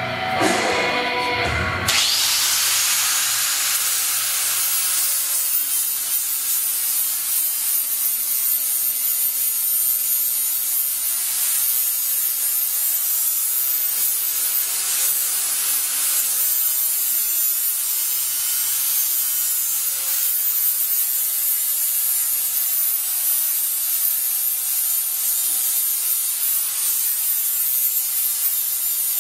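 Electric angle grinder coming up to speed over the first two seconds, then grinding steadily along the edge of a steel sheet-metal panel with an abrasive disc: a constant high whine over hiss.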